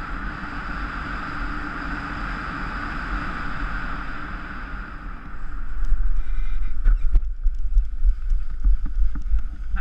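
Wind rushing and buffeting over the microphone of a paramotor pilot's action camera as the pilot glides down with the engine killed. The buffeting grows louder and gustier about halfway through as the pilot comes in to land.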